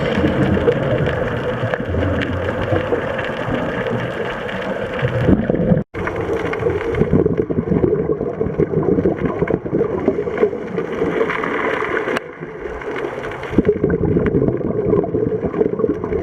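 Muffled underwater noise picked up through a diving camera's housing, with gurgling scuba bubbles. The sound cuts out for an instant about six seconds in.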